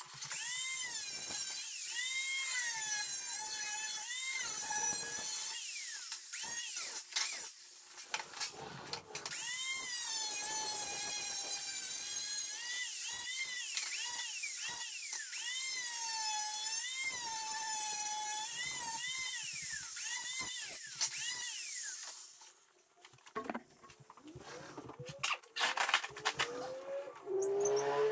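Electric angle grinder cutting sheet metal for a patch panel. Its whine dips and recovers as the wheel bites, over a high hiss. It pauses briefly about nine seconds in, then cuts again and stops a few seconds before the end, leaving light clatter from the metal being handled.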